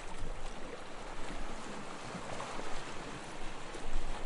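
Sea waves washing gently on a shore, a steady hiss of surf that swells slightly near the end.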